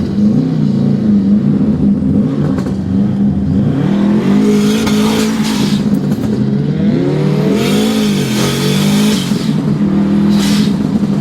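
Rally-prepped Subaru Impreza WRX's flat-four engine heard from inside the cabin, revving up and dropping back again and again as it is driven hard through gear changes. Several rushing bursts of loose ground spraying against the car come in the middle and near the end.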